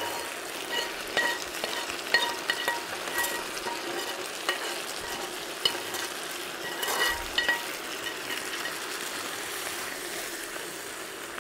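Stewed meat and potatoes with a butter, onion and oat-flour roux (zasmażka) frying in a pan while being stirred: a steady sizzle with irregular knocks and scrapes of a utensil against the pan, some leaving a short metallic ring. The mixture is very thick.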